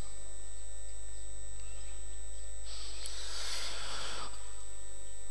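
Steady electrical mains hum from the microphone and sound system between phrases of the recitation, with a soft hiss lasting about a second and a half near the middle.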